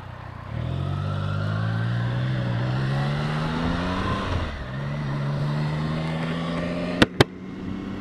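Triumph Tiger 660's three-cylinder engine pulling away, its pitch rising steadily for a few seconds, dropping briefly about four seconds in, then running at an even pitch. Two sharp clicks a fraction of a second apart near the end.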